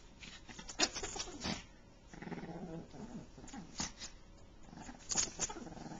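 A chihuahua growling as it bites and wrestles a large plush toy: a low, rumbling growl about two seconds in, among several short, sharp scuffs and snaps.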